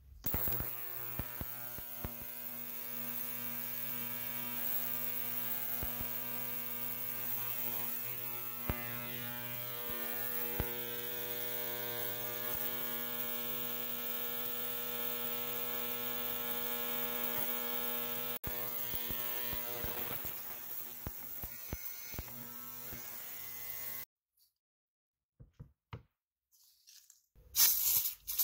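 Ultrasonic cleaner running with a steady electric buzzing hum, its bath full of small model-car parts; the hum cuts off abruptly about four seconds before the end. A few faint clicks follow, then a short loud spray hiss near the end.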